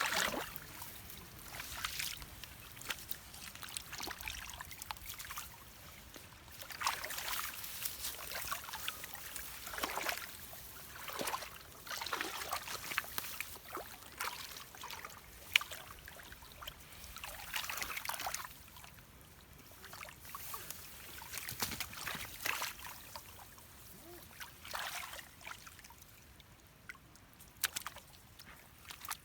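Shallow muddy water splashing and sloshing in irregular bursts, with one sharp click about halfway through.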